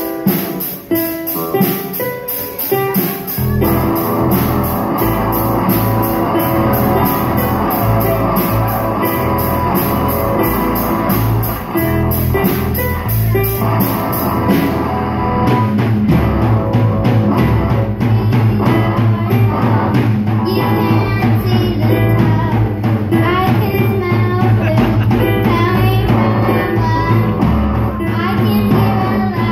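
Live children's rock band playing: drum kit, electric guitars, bass and keyboard, with a girl singing. The opening is sparse, and the full band comes in about three and a half seconds in.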